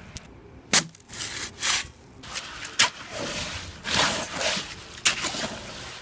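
Gritty scraping and crunching of concrete being worked by hand, with three sharp knocks about two seconds apart. For part of it a hoe is pushing fresh concrete mix around in a wheelbarrow.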